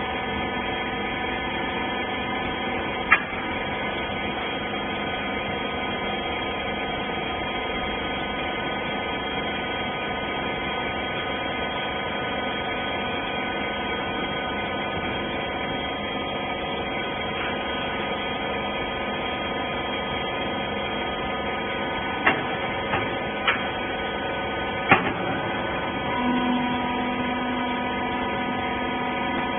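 Hydraulic rag baler running: a steady hum of many tones from its pump and motor, broken by a sharp knock about three seconds in and a cluster of knocks near the end.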